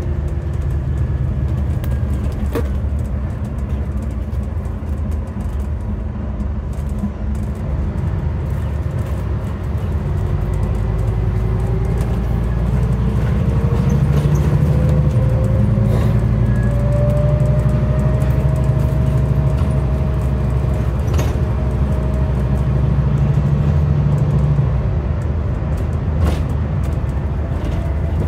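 Scania DC09 9.0-litre five-cylinder diesel engine of a Scania N250UD double-decker bus, heard from inside the bus while it drives. The engine works harder from about ten seconds in, with a whine that rises in pitch as the bus gathers speed, then eases off near the end. A few light rattles come from inside the bus.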